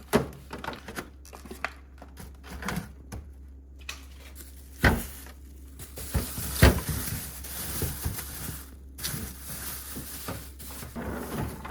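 Plastic food containers and packages being set onto fridge shelves: scattered clicks and clunks with rustling, and two louder knocks about five and seven seconds in.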